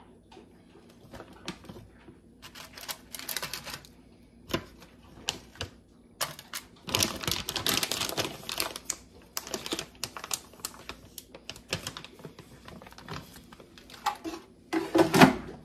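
Frozen chicken nuggets being set into a parchment-lined air fryer basket while a crinkly bag of nuggets is handled: a run of light clicks and rustles, busiest around the middle, with a louder clatter near the end.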